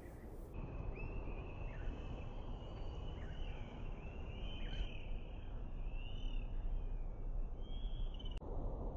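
Small birds chirping now and then over a steady low hum of outdoor background noise. The chirping stops with a click about eight seconds in.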